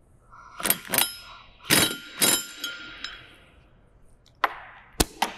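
Impact wrench snugging a nut on the drawbar activator rod while a hand wrench holds the air cylinder. A short whirr about half a second in is followed by two loud metallic clanks that ring on for about a second, then a short hiss and sharp clicks near the end.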